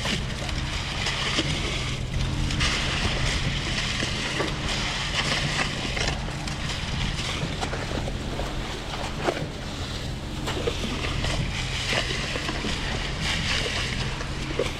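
Reed B50G concrete pump with its Ford 7.3 Godzilla gas V8 running steadily under load while pumping, the pump cycling about every two seconds with a clunk and hiss at each stroke change.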